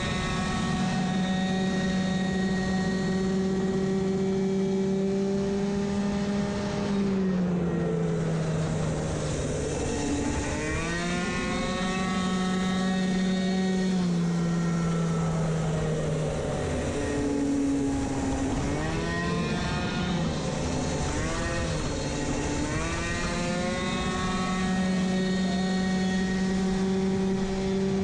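Two-stroke racing moped engine, recorded onboard, running hard at a high, steady pitch. Several times it drops in pitch as the throttle is closed for corners, then climbs back as it opens again.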